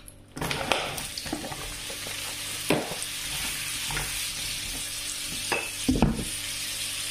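Sliced mushrooms dropped into hot oil in a frying pan start sizzling a moment in and keep up a steady sizzle. A spatula stirring them knocks and scrapes against the pan several times.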